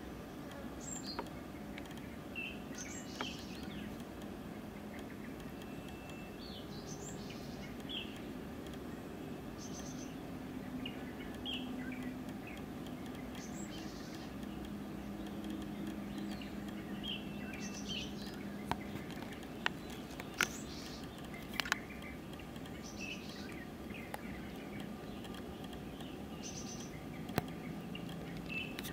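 Outdoor ambience of scattered short bird chirps every second or two over a steady low hum, with a few sharp clicks in the second half.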